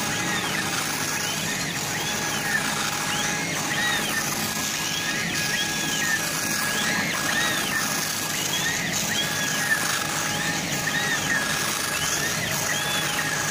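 CO2 laser engraving machine raster-engraving: the head's drive motors whine, the pitch rising and falling with each back-and-forth pass, more than once a second. Underneath is a steady machine hiss and a steady high tone.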